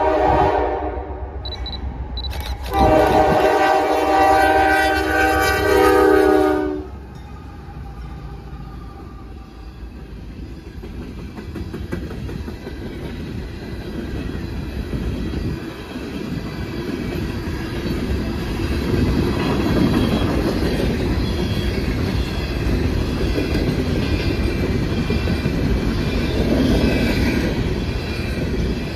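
Diesel locomotive horn sounding twice: a short blast right at the start, then a longer one held for about four seconds. The train then rolls past with a steady rumble from the wheels and cars that builds up over the second half.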